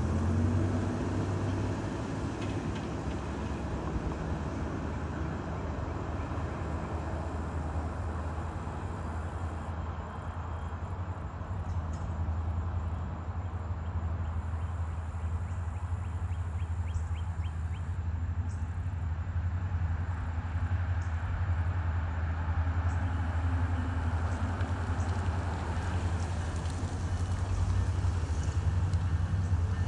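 SunRail commuter train's diesel locomotive engine running. It rises in pitch over the first second, then holds a steady low hum under a wash of outdoor noise.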